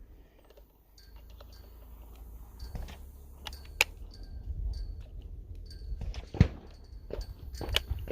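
Scattered sharp clicks and knocks over a low rumble, loudest about four seconds in and again about six and a half seconds in.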